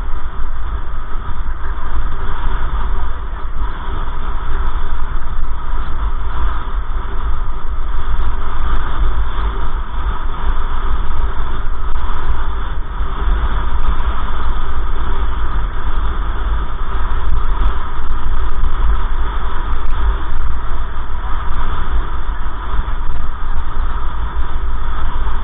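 Steady road and engine noise of a moving car, heard from inside the cabin as a heavy, continuous low rumble.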